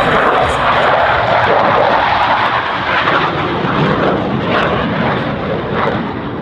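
Loud jet roar from a Blue Angels F/A-18 Hornet's twin engines as it passes low overhead, easing a little near the end.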